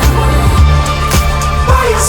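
Background music: a pop/R&B track with a steady beat, a bass line and a sung vocal line.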